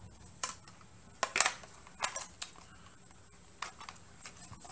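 Hard plastic parts of a tablet clamp mount handled and turned over, giving a string of scattered light clicks and taps.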